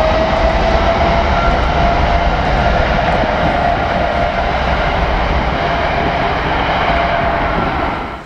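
Boeing 777's GE90 turbofan engines at takeoff power during the takeoff roll and liftoff: a loud roar with a whine that rises a little in pitch and then holds steady. The sound cuts off suddenly near the end.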